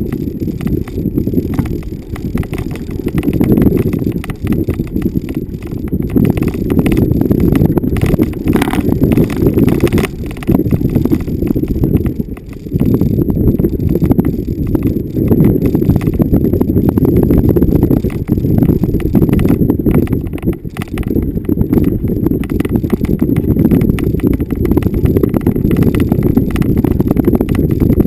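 Vehicle driving over bumpy off-road ground: a steady low rumble, full of knocks and rattles as it jolts over the rough surface.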